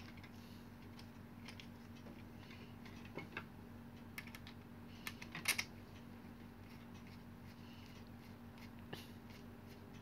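Faint scattered clicks and taps of a screwdriver working screws out of a Philips hair dryer's plastic casing as it is handled, the loudest cluster about five and a half seconds in.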